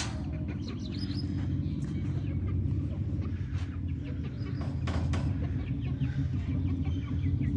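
Hens clucking in a wire-mesh chicken coop, with sharp clicks and rattles as its door is tugged at and will not open, over a steady low rumble.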